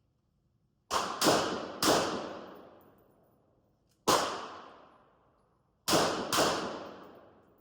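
Six gunshots at an indoor range, each trailing off in a long echo: three in quick succession about a second in, a single shot about four seconds in, then a quick pair near the end.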